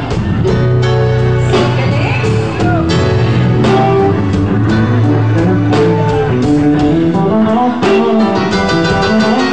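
Loud live band music with an electric bass holding long low notes under guitar, over a steady beat of sharp hits.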